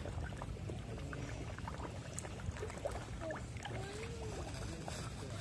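A crowd of koi splashing and slurping at the pond surface, a constant scatter of small splashes and wet clicks over a steady low rumble.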